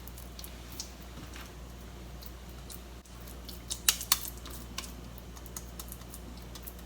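Light clicks and taps from handling food and kitchenware while shaping meat patties, with a cluster of sharper ones about four seconds in, over a steady low hum.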